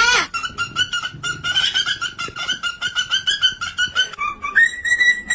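Parrot chirping in a fast run of short, same-pitched notes at about seven a second, dropping briefly to a lower note and then holding one long steady whistle near the end.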